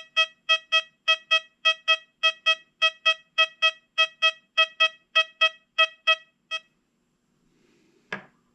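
XP Deus 2 metal detector sounding its target tone for a silver dollar: a steady-pitched beep repeating about four times a second, stopping about six and a half seconds in. Two short knocks follow near the end.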